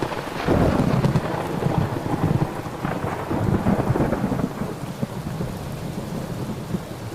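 Thunder rolling over steady rain: the rumble surges again about half a second in and around three to four seconds, then dies away over the last few seconds.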